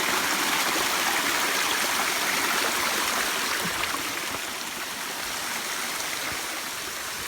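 Waterfall water falling and running in a steady rush, a little quieter from about halfway through.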